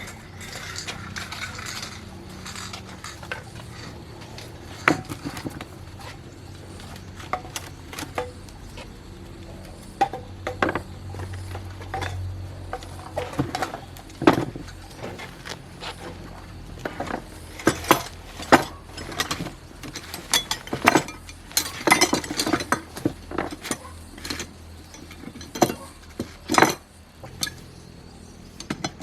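Metal parts and hand tools clinking, tapping and knocking at irregular intervals, sparse at first and coming thick and fast in the second half, with a brief scraping at the start.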